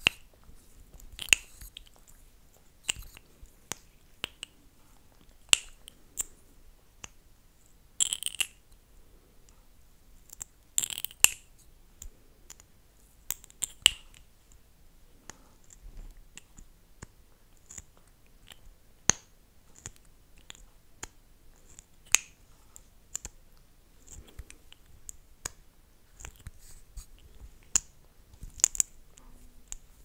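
Close-miked ASMR mouth sounds: lips coated in gloss smacking and parting with sharp, wet clicks, irregularly spaced, a dozen or so louder ones among softer ones.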